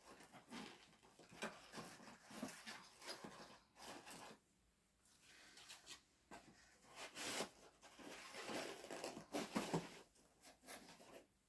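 Faint rustling and crinkling of packaging being handled, with small clicks and taps, in short irregular bursts.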